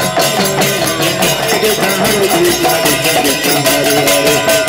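Kirtan: a group of voices chanting a devotional song with a lead singer on a microphone, over a mridanga barrel drum and hand cymbals clashing in a fast, even beat.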